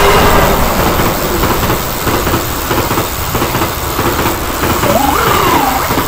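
Loud, steady rushing noise of a train going by, with a short tone that rises and falls again near the end.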